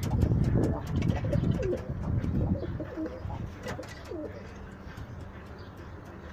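Domestic pigeons cooing, several low, wavering coos overlapping in the first few seconds and dying away about four seconds in, with scattered sharp clicks.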